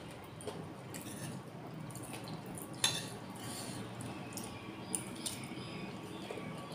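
Close-miked eating sounds: chewing a mouthful of rice and vegetables, with crisp cracker bites and a metal spoon tapping the plate. There are scattered sharp clicks and crunches, the loudest about three seconds in.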